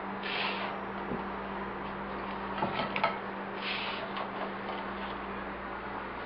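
Toasted bruschetta slices being picked off a metal baking sheet and set on a platter: a few light clicks and two short scrapes, over a steady low hum.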